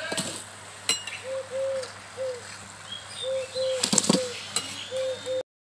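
A dove cooing over and over in short arched notes, with a few sharp metal clinks as fried gujiya are tipped onto a steel plate; the loudest clink comes about four seconds in. Small birds chirp briefly in between, and the sound cuts out just before the end.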